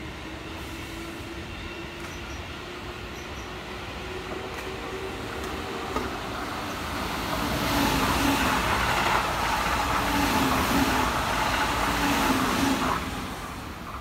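Keihan 3000 series electric train passing close by: the running noise of wheels on rail and a motor hum builds up, stays loud for about five seconds, then falls away near the end as the last car goes past.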